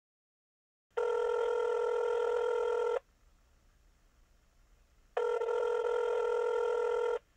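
A telephone ringing: two steady, buzzy rings of about two seconds each, with a pause of about two seconds between them.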